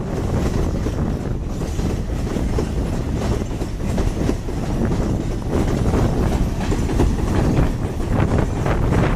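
A freight train of steel gondola wagons rolling past close by, its wheels clicking and clattering over the rail joints in a steady run of repeated clicks.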